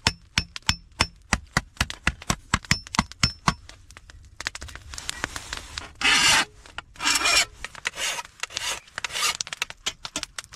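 Hammer striking a thin 22-gauge steel sheet on a stump anvil, rapid blows with a light metallic ring, as a lip is turned on the griddle's edge. Then a series of scraping strokes on the edge as the sharp bits are worked off.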